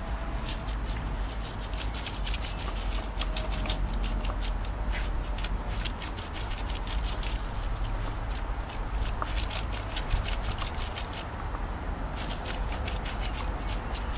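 Beagle puppy digging in wet mud with its front paws: rapid runs of short scratching, scraping strokes that pause briefly about twelve seconds in.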